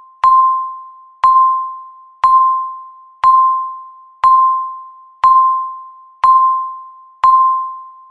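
Countdown timer beep: one short electronic tone of a single pitch each second, eight in all, each starting sharply and fading away, marking the last seconds of a countdown.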